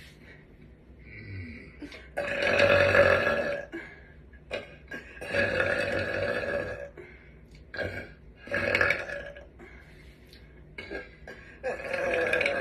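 A girl burping loudly on command, again and again: four long, drawn-out burps each lasting a second or two, the third one shorter, and the last starting near the end.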